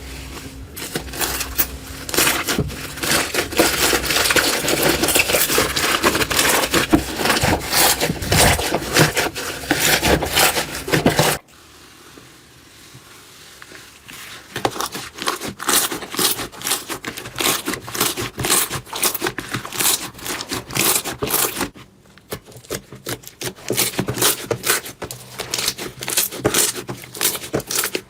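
Slime being squeezed and pressed, giving dense, rapid crackling and crunchy clicks. It cuts abruptly to a quieter stretch of sparser clicking about 11 seconds in, and there is another brief break near 22 seconds.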